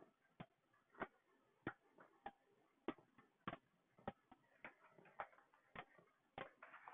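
Faint metronome-like clicks ticking at a steady tempo, about one and a half clicks a second, keeping time between sung lines.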